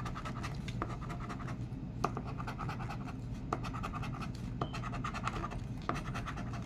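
A coin scratching the coating off a paper lottery scratch-off ticket in short runs of rapid back-and-forth strokes, with a light click every second or so.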